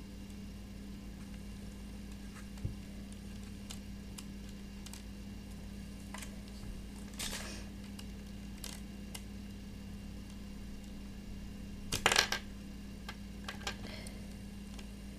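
Small plastic surprise-egg toy pieces being handled and fitted together on a table: scattered light clicks and taps, with a short cluster of louder clicks about twelve seconds in.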